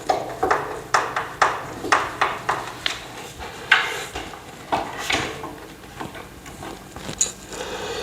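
Bolts being tightened into a TV stand's metal frame with a hand tool: light metallic clicks about twice a second, with a few louder knocks around the middle.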